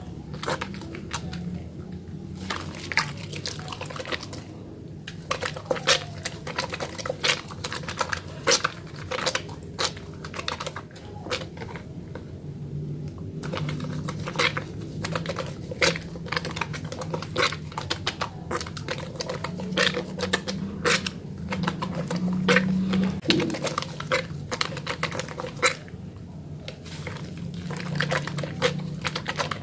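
Hands lathering a small wet bar of Holly soap, making quick, irregular sticky clicks that run on without a break.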